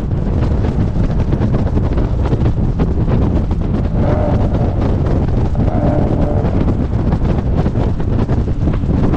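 Heavy wind buffeting on a car-roof-mounted camera's microphone at road speed, over a low steady rumble from the moving car. Two short, steady mid-pitched tones sound about four and six seconds in.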